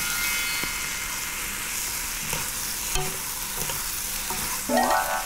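Japchae glass noodles with vegetables sizzling in oil in a frying pan as they are stirred and tossed with a wooden spoon and chopsticks. This is the final stir-fry after the sesame oil and chives go in. There is a steady high sizzle with a few light knocks of the utensils, and a brief pitched sound near the end.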